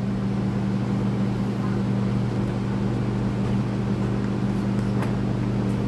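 Steady low hum of electric shop fans, with a couple of faint clicks of small parts being handled near the end.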